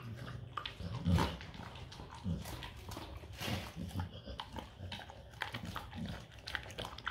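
A Rottweiler eating moistened kibble from a stainless steel bowl: irregular wet chomping, crunching and lapping, with small clicks of kibble and teeth against the metal. A louder bump about a second in.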